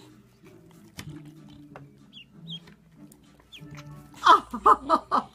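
A duckling peeps faintly a few times, with soft music underneath. Near the end there is a loud, quick run of about six short pulses.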